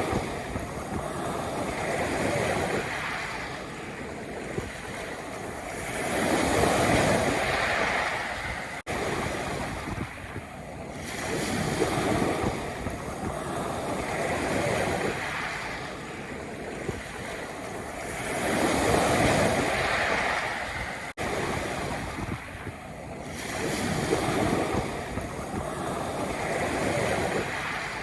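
Sea waves breaking and washing back on a pebble beach, swelling and ebbing in slow surges about every five to six seconds. The level dips sharply twice for an instant.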